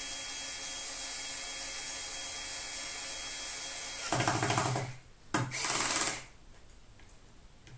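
Cordless screwdriver running steadily as it drives a screw through the woofer's rim into the subwoofer cabinet, followed about four and five and a half seconds in by two short, louder bursts with a sharp click between them, after which it stops.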